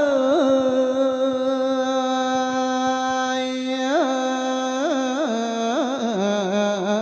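A single voice singing an Isan thet lae sermon melody. It holds one long note for about four seconds, then moves through a string of quick wavering ornamental turns.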